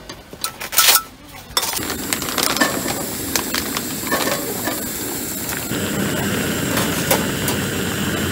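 A few clinks of dishes, then from about a second and a half in, patties sizzling and crackling in oil in a frying pan on a camping gas burner. From about six seconds in the sound turns into a steadier hiss with a low hum, as a pot of soup boils hard.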